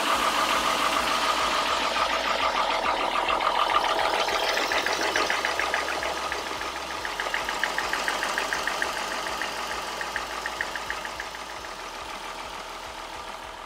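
VW Golf Mk4 2.8 VR6 engine idling, with a fast, even ticking from the serpentine belt drive. The owner takes the noise for a worn tensioner pulley that needs changing.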